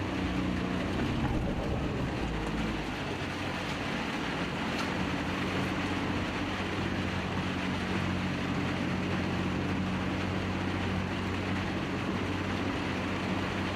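Suzuki Jimny JB23's small three-cylinder engine running steadily under load, a constant low hum, as the vehicle pushes forward through floodwater deep enough to lift its body, with a steady rushing noise of water around it.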